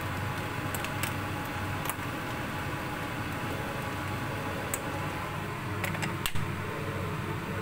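Clams simmering in bubbling broth in a skillet on a gas burner, over a steady low hum. A metal ladle clicks now and then against the pan and the clam shells as it stirs, with a sharper knock about six seconds in.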